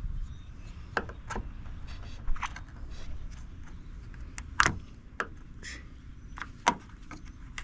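Scattered clicks and light knocks of hand tools and plastic trim being handled at a car door, with a sharper knock about four and a half seconds in and another a couple of seconds later.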